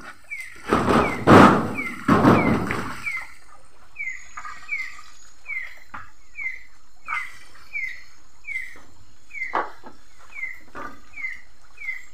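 A night-calling animal gives a steady series of short, downward-sliding chirps, a little more than one a second. Loud noisy bursts fill the first few seconds, and a few sharp knocks fall later.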